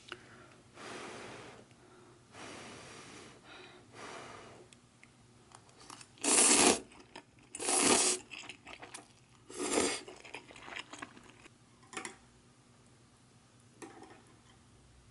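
A person eating noodle soup: three loud slurps of noodles in the middle, about a second and a half apart, with softer slurping or blowing sounds before them and a few light clicks near the end.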